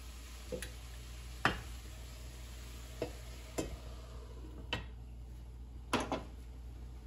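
A spatula stirring and knocking against a nonstick skillet of sautéing vegetables over a faint sizzle, the sharpest knock about one and a half seconds in. Later a glass lid clinks onto the pan, and near the end the spatula is set down on a spoon rest with a couple of clacks.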